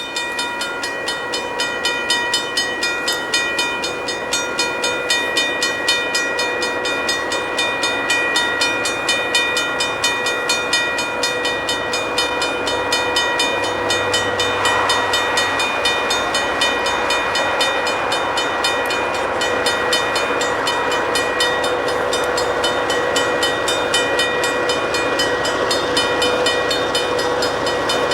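Train on the move, with a regular clatter about two to three times a second and steady ringing tones over it.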